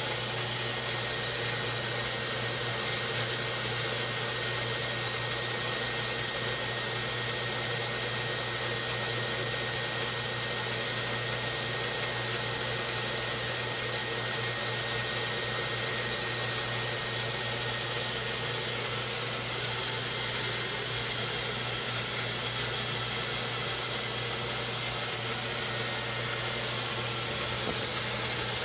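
A steady mechanical drone: a low hum under a strong high hiss, with a faint steady whistling tone, unchanging.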